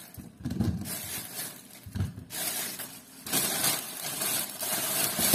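Thin plastic shopping bag crinkling and rustling in spurts as apples are pulled out of it, fuller in the second half.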